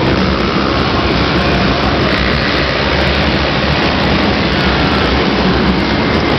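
Loud, steady din of racing ATV engines in an indoor arena.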